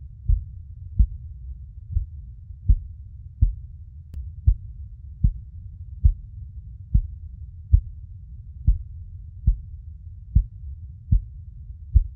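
A mother's heartbeat: regular soft low thumps at about 72 beats a minute over a steady low rumble.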